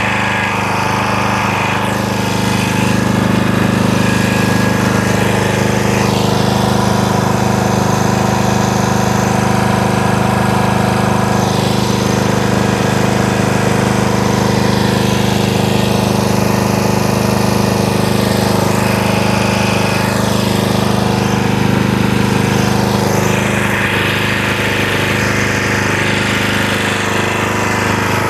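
Antique gasoline generator's small engine running steadily at a constant speed, with a rattly, hammering edge.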